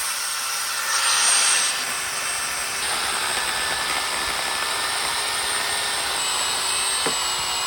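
Chainsaw running steadily at full speed with a high-pitched whine, cutting into a tree, briefly louder about a second in.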